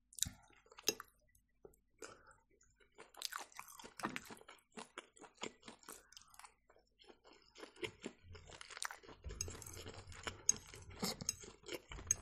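Close-miked chewing and mouth sounds of a person eating turkey rolls: a rapid run of small clicks and smacks, busier in the second half.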